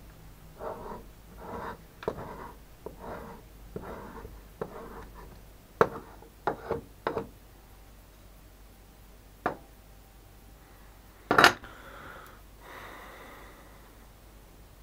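Metal scraper scraping the dark layer of impurities off the underside of a cast beeswax ingot, in a run of rough strokes about one every two-thirds of a second. Then a few sharp taps and clicks, and one louder knock about eleven seconds in.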